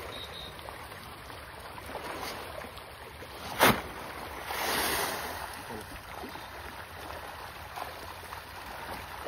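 Fish feed flung from a sack showers onto a pond's surface with a hissing splash lasting about a second, just after a single sharp snap, the loudest sound. Then fish feeding at the surface churn the water against a steady outdoor hiss.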